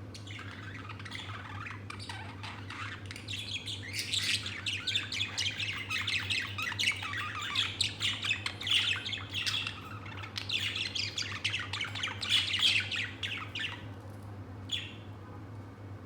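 Pet budgerigar warbling and chattering: a long run of rapid, squawky chirps that thickens and gets louder in the middle, then stops, with one short call shortly after.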